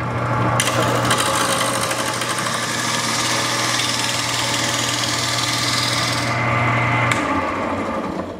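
Rikon 70-100 mini lathe running with a steady motor hum while a hand-held turning tool cuts a spinning denim micarta (denim cloth set in epoxy) blank, giving a harsh, continuous scraping hiss. The cutting thins out about six seconds in, with a click near the end.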